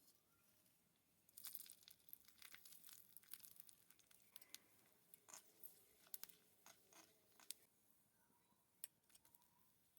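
Faint crackling and crisp ticks of food frying in a miniature pan. The crackle starts about a second in, is densest for the next two seconds, then thins to scattered ticks.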